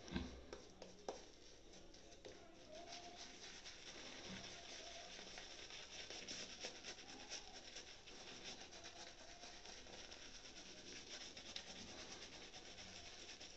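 Synthetic-bristle Yaqi Tuxedo shaving brush working soap into lather on the face: faint, rapid, continuous swishing and rubbing strokes of bristles through wet lather.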